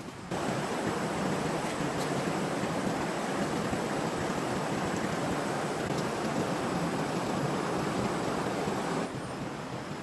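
Steady rush of running stream water, starting abruptly just after the beginning and cutting off sharply about a second before the end.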